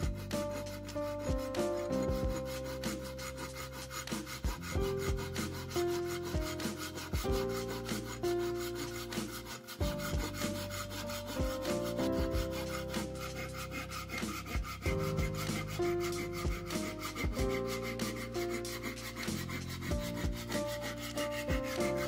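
A thin metal saw blade sawing back and forth through a square strip of wood, a steady run of repeated rasping strokes. Background music with held notes plays under it.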